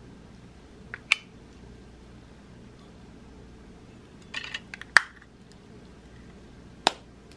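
Vintage gold-tone metal confetti powder compact being handled, its hinged lid and clasp giving sharp metallic clicks: a pair about a second in, a quick run of small clicks and then the loudest snap about five seconds in, and one more near the end.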